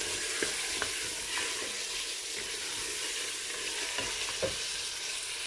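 Lamb pieces with onion and garlic sizzling steadily in hot oil in an aluminium pressure cooker as they are browned. A plastic spoon stirs them and clicks against the pot now and then.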